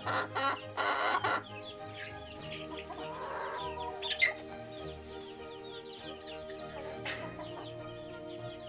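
Chickens squawking and clucking loudly for about the first second and a half, then quieter clucking and high peeps over background music.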